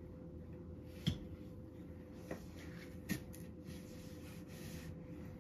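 Steady low hum of a running kerosene fan heater, with three faint sharp clicks about one, two and three seconds in.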